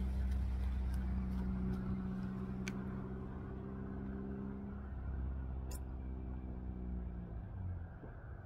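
A motor vehicle's engine running nearby: a steady low hum that drops a little in pitch about five seconds in and fades out about seven and a half seconds in.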